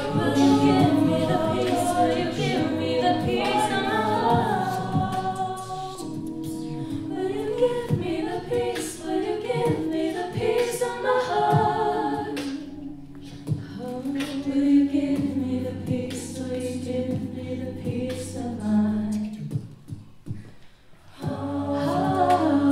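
Mixed-voice a cappella group singing live: a woman's solo line over held backing chords and a low sung bass. The voices drop away briefly near the end, then come back in.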